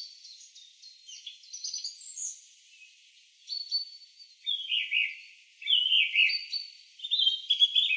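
Birdsong: a run of small-bird chirps and short whistled phrases, several sliding down in pitch, the strongest ones in the second half.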